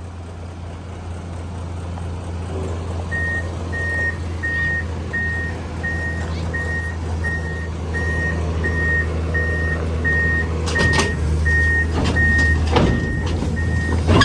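Excavator's diesel engine running steadily, with its travel alarm beeping at a regular pace of about one and a half beeps a second from about three seconds in. Several sharp metallic clanks come near the end.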